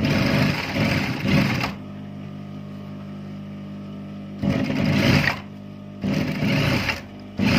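Industrial single-needle sewing machine stitching a trouser seam in short runs, starting and stopping four times, with a steady motor hum between runs.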